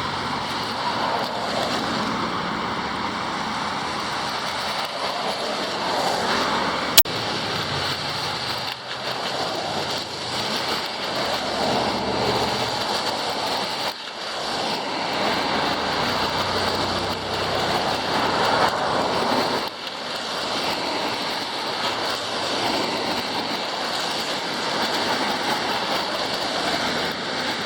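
Traffic on a wet street in the rain: a steady hiss of tyres on wet pavement that swells and fades as vehicles pass, with one sharp click about seven seconds in.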